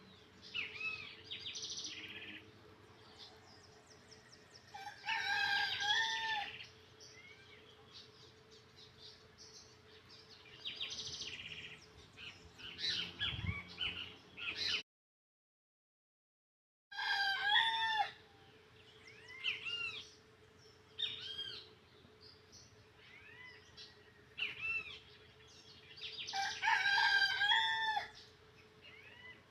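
Birds singing in repeated bursts of quick, sliding chirps over a steady low hum, with a sudden gap of total silence about halfway through.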